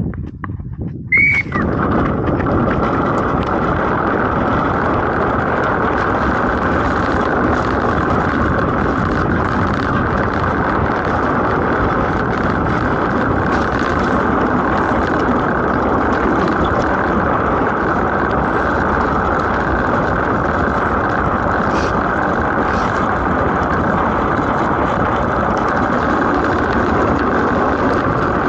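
Steady rushing rumble of a DN ice boat sailing at speed: steel runners running over the ice, with wind on the microphone. It sets in abruptly about a second and a half in and then holds even.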